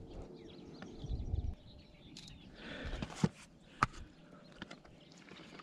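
Handling sounds as a largemouth bass is held on a fish measuring board: low rumbling at first, then two sharp clicks a little over half a second apart, about three seconds in, and a few faint ticks.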